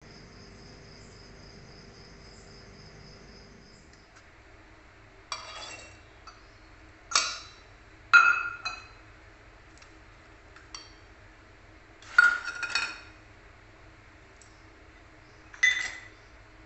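Stainless-steel bowls clinking against the rim of a steel mixer-grinder jar as chopped vegetables are tipped in: about five sharp, ringing metallic clinks several seconds apart, after a faint steady hum at first.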